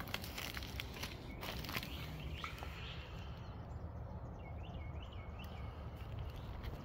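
Footsteps on wood-chip mulch and scattered clicks, over a steady low background noise, with a bird giving a few short chirps about two-thirds of the way through.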